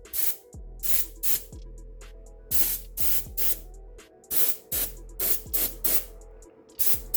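Airbrush spraying top coat in about a dozen short bursts of hiss, each about a quarter second long, over a steady low hum.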